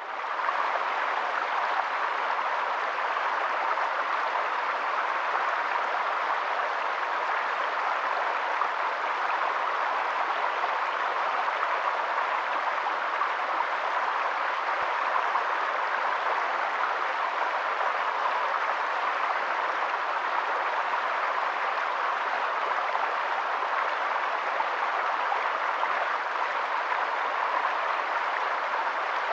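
Flowing stream water making a steady, even rushing sound.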